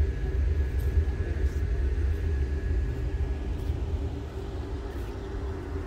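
Low, uneven outdoor rumble with a faint steady high whine that fades about halfway through.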